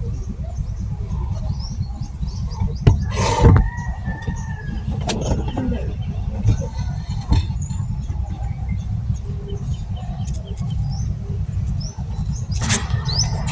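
Steady low rumble of outdoor ambience with birds chirping now and then, and a couple of sharp knocks about three seconds in.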